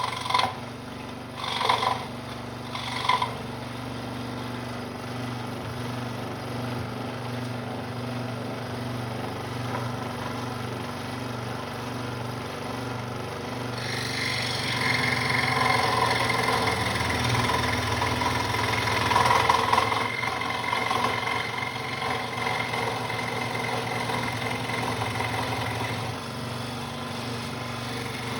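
Central Machinery scroll saw running steadily, its motor and reciprocating blade humming, with a few brief louder sounds in the first few seconds. About halfway through the blade starts cutting into 1-inch pine and a louder rasping sawing noise joins the hum.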